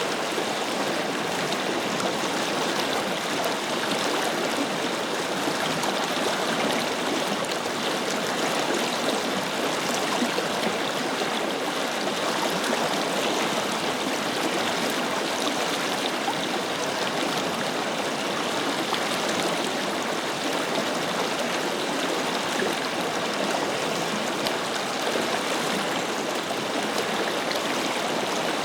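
A forest river flowing steadily, water rushing and gurgling over rocks.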